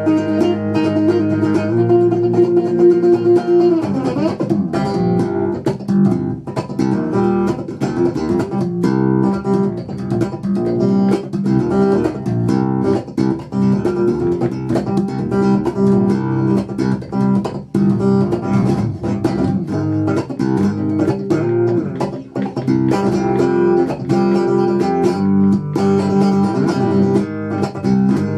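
Spector electric bass strung with D'Addario EXL280 piccolo strings, played with the fingers, its notes an octave above a normal bass, close to guitar register. Notes ring held for about the first four seconds, then a busy run of quickly plucked notes follows.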